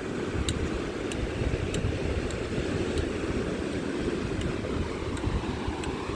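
Steady rushing of ocean surf, with wind buffeting the microphone in a low rumble.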